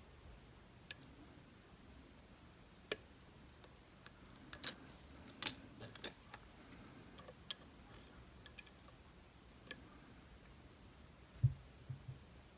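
Sparse small metallic clicks of lock picks working the pins of a DOM RS8 high-security cylinder, one every second or so, with a dull low knock near the end.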